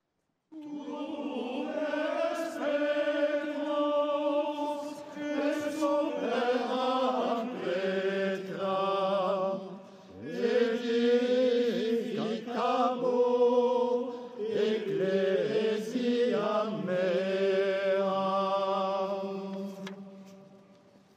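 Liturgical chant sung in church: voices carry a single melody line in long held notes, fading out near the end.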